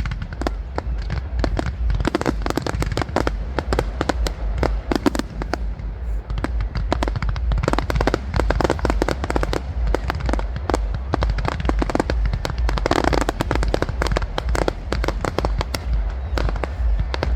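Fireworks display: a dense, continuous barrage of rapid crackling pops and bangs, many reports a second, over a steady low rumble.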